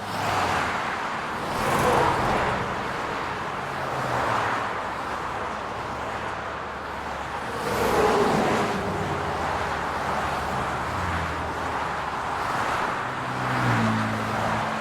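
Road traffic: cars driving past with a steady hum of engines and tyres. There are louder passes about two seconds in and again around eight seconds, the second with a falling engine tone. Near the end an engine note rises and then holds.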